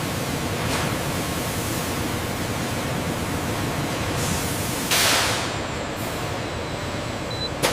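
Steady hissing factory machine noise, with a louder burst of hiss about five seconds in and a sharp click near the end.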